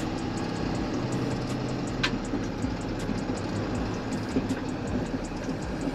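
Box truck's engine running at low speed with a steady drone, heard from inside the cab, as the truck creeps across a parking lot.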